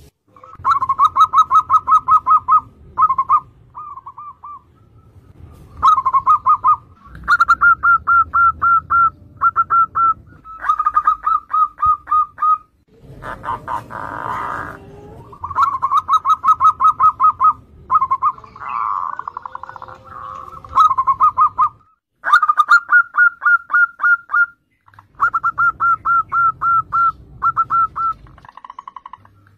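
Zebra doves (perkutut) singing in full voice: repeated bursts of rapid staccato cooing notes, about five or six a second. Each burst runs for one to three seconds with short pauses between.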